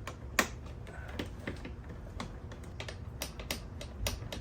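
Irregular light clicks and taps of hands working on the plastic and metal parts of a motorcycle fairing around its radio, with one sharper click about half a second in.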